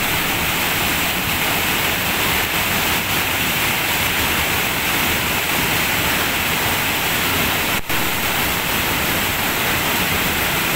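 A river in flood, swollen by heavy rain and overflowing its banks: fast brown floodwater rushing and churning in a steady, loud wash of noise, with a momentary dropout about eight seconds in.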